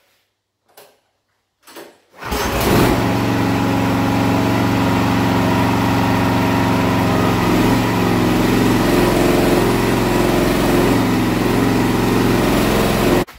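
A small gasoline engine starts about two seconds in and runs steadily at a constant speed.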